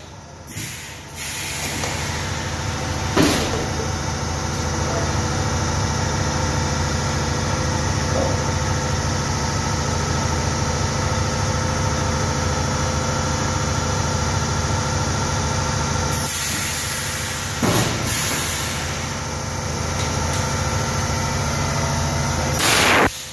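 Two-cavity plastic jar blow-moulding machine running with a steady motor hum. Short loud bursts of compressed-air hiss come about three seconds in, in a longer stretch from about sixteen to eighteen seconds in, and loudest just before the end.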